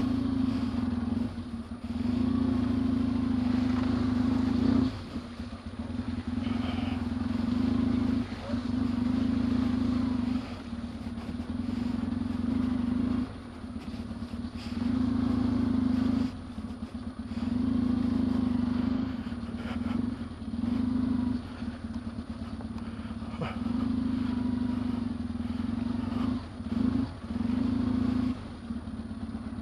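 Yamaha XTZ750 Super Ténéré's parallel-twin engine pulling the bike along a dirt track, loud in stretches of a few seconds with short dips between as the throttle is rolled on and off.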